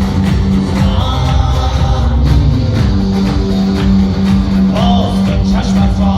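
Live band music from an Iranian band: plucked strings and a beat over a held low note, with a wavering melody line coming in near the end.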